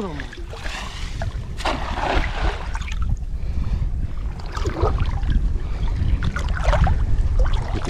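Water sloshing and splashing in uneven bursts, over a steady low rumble of wind buffeting the microphone.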